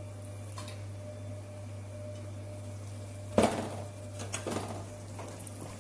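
Cookware knocking in a kitchen: one sharp metal knock with a short ring about three and a half seconds in, followed by a few lighter clatters, over a steady low hum.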